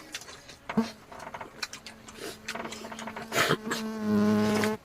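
Eating sounds, with scattered short smacks and clicks of chewing, over a steady buzzing hum that starts about a second in and gets much louder near the end.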